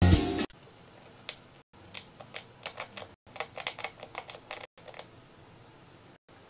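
A hamster gnawing at a large cracker, making a run of quick, irregular crunchy clicks. Loud music plays briefly at the start and cuts off half a second in.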